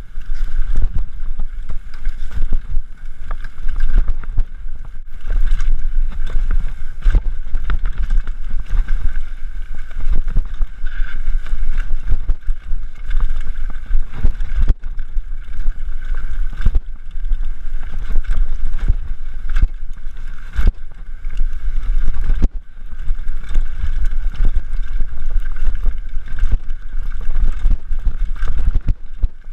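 Wind buffeting a camera microphone over a heavy low rumble, with many short knocks and rattles throughout, typical of a mountain bike being ridden fast over a rough trail.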